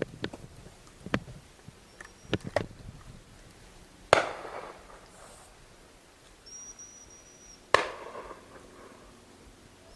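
Shotgun fired at driven game birds: two loud shots about three and a half seconds apart, each echoing briefly, after several fainter sharp cracks in the first few seconds.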